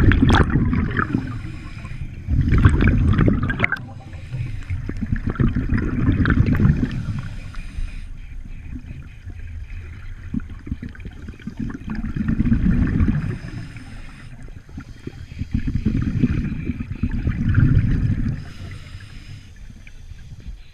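Scuba diver breathing through a regulator, heard from inside the neoprene hood: exhaled bubbles gurgle and rumble in five bursts a few seconds apart, with quieter spells between for the inhalations.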